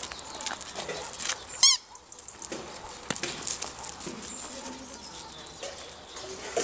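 A squeaky toy ball gives one short, loud, wavering squeak a little under two seconds in. Around it, paws and footsteps crunch on gravel.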